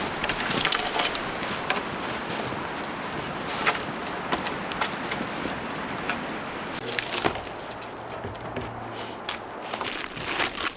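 Dry wood and branches snapping and cracking irregularly as they are broken and handled, over a steady hiss.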